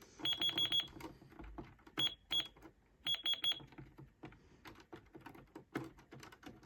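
Toy cash register beeping as its buttons are pressed: quick runs of short, high, single-pitched beeps, about five near the start, two about two seconds in and five more about three seconds in. After that come scattered button clicks with no beeps.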